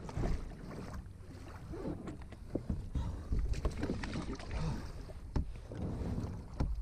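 Water sloshing and splashing against a rocking kayak's hull, with irregular knocks and bumps from the hull and gear close to the camera, over a low wind rumble on the microphone. The kayak is tipping as its paddler struggles to keep balance.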